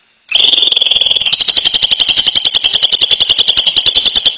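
Cucak ijo (greater green leafbird) singing its rapid 'ngentrok' rattle, a fast steady string of high notes at about a dozen a second, starting a moment in.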